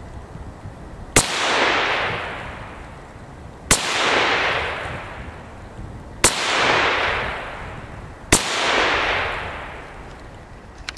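Four single rifle shots from a CZ 512 semi-automatic rimfire rifle in .22 WMR, fired unhurriedly about two to two and a half seconds apart. Each sharp crack is followed by about a second of echo.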